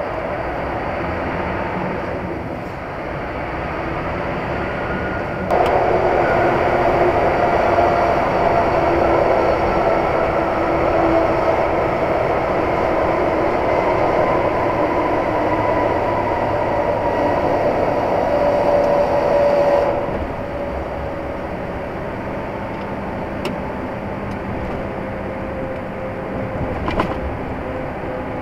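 Steady road and engine noise of a vehicle travelling at speed, heard from inside, with faint drifting tones. It turns abruptly louder about five seconds in and drops back abruptly some fifteen seconds later.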